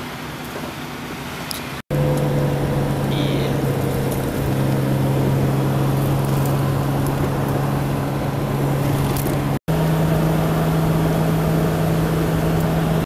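Passenger van's engine and road noise heard inside the cabin while driving: a steady low hum over a rushing haze. It is quieter for about the first two seconds, then louder and steady, with two brief dropouts.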